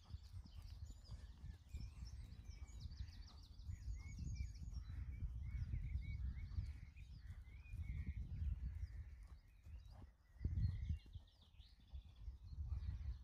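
Small birds singing, with repeated quick chirps and rapid high trills, over a low steady rumble of outdoor noise that swells louder about ten seconds in.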